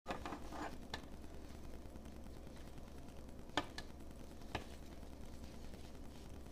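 Handling noise from action-camera mounting accessories, a fabric head strap with plastic mounts and clips: rustling at first, then four sharp plastic clicks, the loudest about three and a half seconds in, over a faint low hum.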